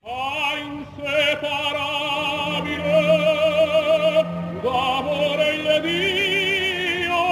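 Intro music led by an operatic voice singing long held notes with heavy vibrato, moving between a few sustained pitches.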